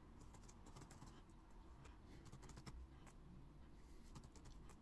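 Faint typing on a computer keyboard, the key clicks coming in short irregular runs.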